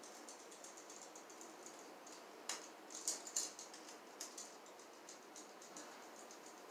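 Screwdriver turning down the unused terminal screws on an electrical receptacle: faint, scattered small metallic clicks and scrapes, with a few sharper ticks around the middle.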